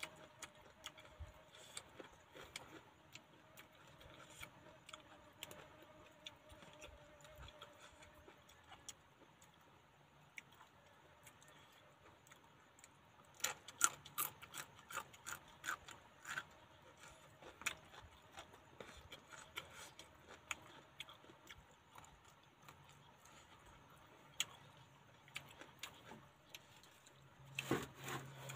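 Faint crunching and clicking of someone chewing raw vegetables, with a run of sharp crunches from biting a raw long bean about halfway through.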